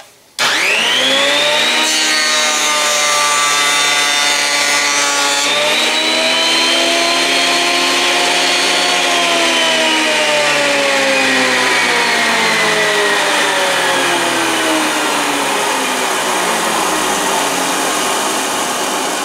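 Benchtop thickness planer switched on, its motor whining up to speed, then planing a board for a few seconds with a hiss of cutting. The pitch lifts as the cutting stops. About nine seconds in it is switched off, and the whine glides slowly down as the high-speed cutterhead coasts toward a stop.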